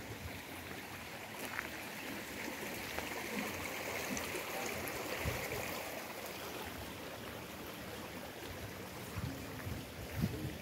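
Steady rush of water flowing in a shallow stream, with a few soft low thumps.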